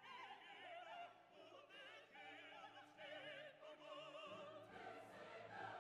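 Faint opera singing with wide vibrato, streamed over an EchoLink connection from the Newsline server while its report waits to begin.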